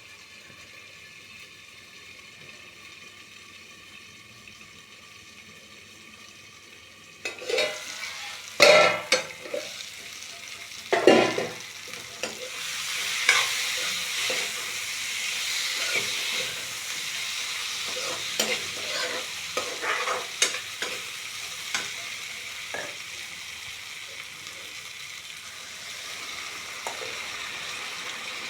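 Food frying in hot oil in a pan, sizzling, while a spoon stirs and scrapes it. It is quiet at first; a few loud clanks of the spoon on the pan come about eight and eleven seconds in, and the sizzle rises about twelve seconds in and carries on with small scraping clicks.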